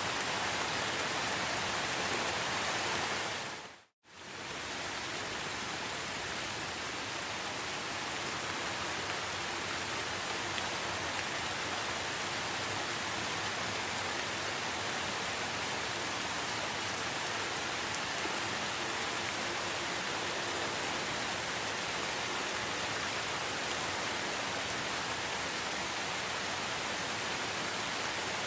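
Steady rain falling in a rainforest, an even hiss. About four seconds in it briefly fades out to silence and fades back in, as at the join of a looped recording.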